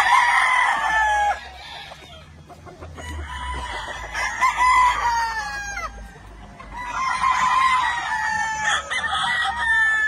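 Gamefowl roosters crowing: three long crows one after another, each falling away at the end.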